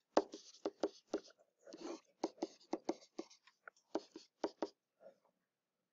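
Stylus writing by hand on a tablet screen: a string of short, irregular ticks and scrapes as the strokes are drawn.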